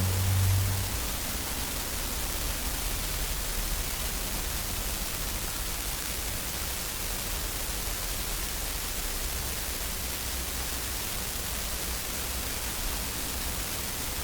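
Steady, even hiss with a faint low rumble and no distinct events; a low hum fades out within the first second.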